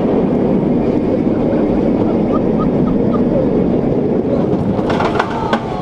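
Loud rush of wind over the microphone mixed with the rumble of an inverted roller coaster train running along its steel track. About five seconds in, sharp clanks and a squeal begin.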